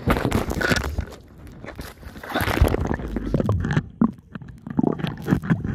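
Irregular splashing, rushing and bumping of seawater against the camera as it goes from the boat into the sea, in uneven loud bursts with a low rumble.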